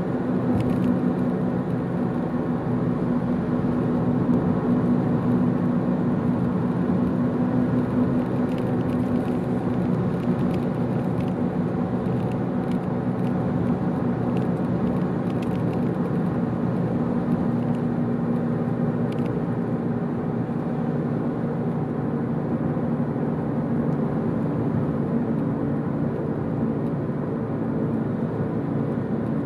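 Car driving at steady road speed: a constant engine hum with tyre noise on asphalt.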